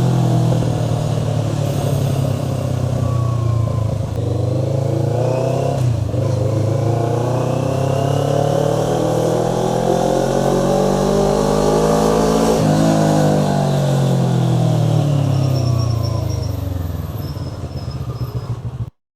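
Motorcycle engine under way, its pitch falling for the first few seconds, then climbing steadily for about six seconds as it accelerates, then sinking again as it slows. The sound cuts off suddenly near the end.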